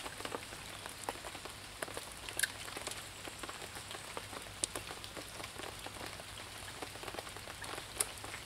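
Steady rain pattering, with a scatter of separate drops landing close by and a few louder ones standing out.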